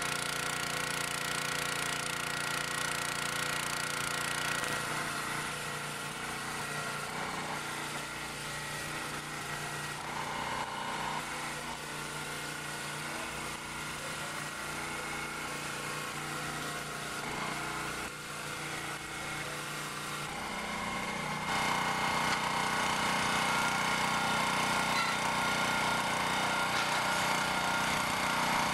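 Log splitter's 6.5 PS OHV petrol engine running steadily, driving the hydraulic pump; it gets louder about 21 seconds in.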